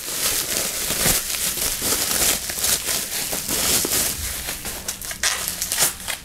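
Bubble wrap crinkling and crackling as hands pull it off a lightsaber hilt: a busy run of crackles, with a few sharper ones near the end.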